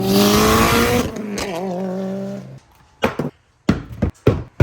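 Car engine running at high revs, with a burst of hissing noise in the first second; the engine note holds steady and cuts off abruptly about two and a half seconds in, followed by a few sharp clicks.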